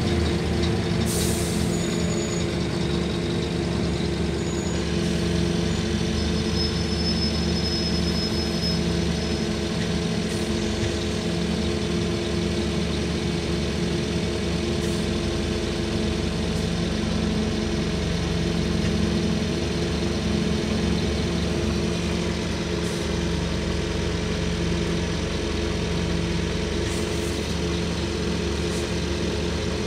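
Scania N230UD OmniDekka double-decker bus's five-cylinder diesel engine running steadily at low revs, heard from inside the passenger saloon, largely idling in stop-start traffic. A short hiss comes about a second in.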